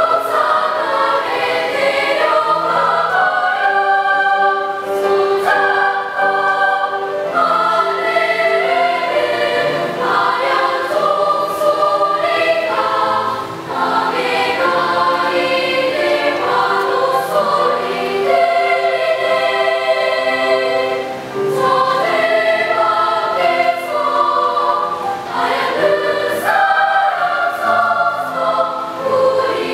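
A children's choir singing a song in harmony, phrase after phrase, with short breaks between phrases.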